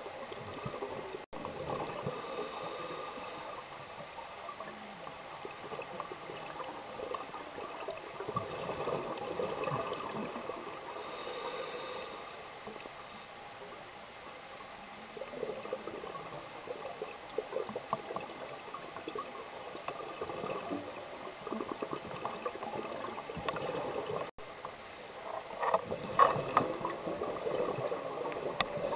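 Underwater sound of a scuba diver's breathing: the regulator's exhaled bubbles rush past in short bursts four times, over a steady underwater hiss.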